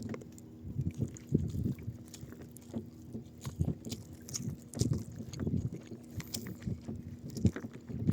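Water knocking and slapping irregularly against the hull of a small boat, over a steady low hum.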